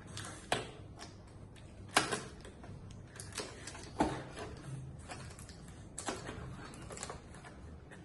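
Scissors snipping cardboard packaging and plastic toy parts knocking in a box: a few sharp, separate clicks and snips, the loudest about two and four seconds in.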